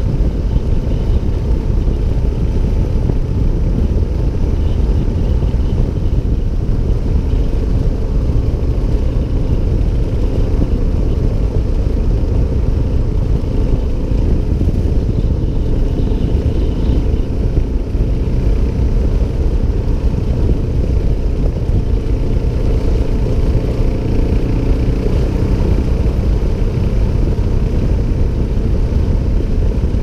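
Suzuki DR650 single-cylinder dual-sport motorcycle riding at a steady pace on a gravel road, heard as a steady low rumble of engine and ride noise.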